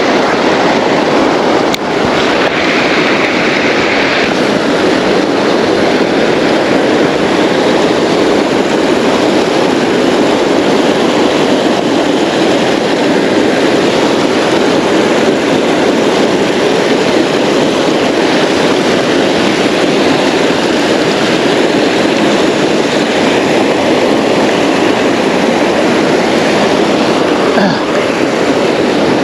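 Creek water rushing, a loud steady rush that hardly changes.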